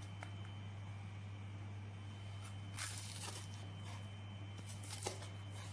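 Two short bursts of crackly crunching, about three seconds in and again near the end, over a steady low electrical hum.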